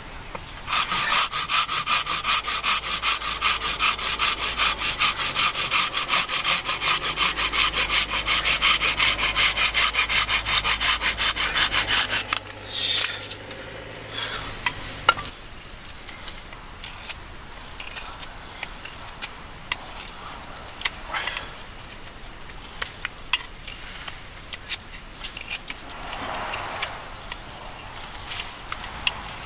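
Folding pruning saw cutting through a thin branch on a wooden chopping block in quick, even strokes, stopping abruptly about twelve seconds in. Afterwards a knife whittling a wooden stick gives faint, scattered ticks.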